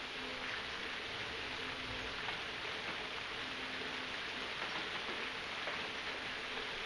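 Rain falling steadily, an even hiss with scattered drops ticking. A faint low hum comes and goes underneath.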